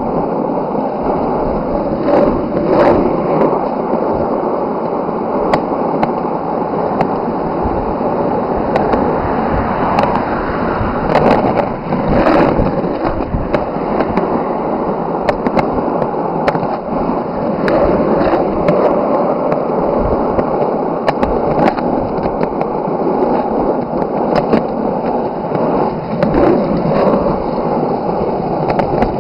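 Skateboard wheels rolling along a road: a steady, gritty rolling noise with scattered sharp clicks.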